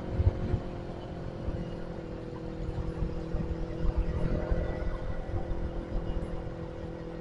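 Motorcycle engine running at a steady speed while riding, with wind rumbling on the microphone.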